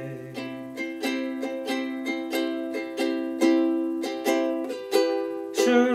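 Ukulele playing the tune over chords without singing, notes plucked at a steady pace of about three a second.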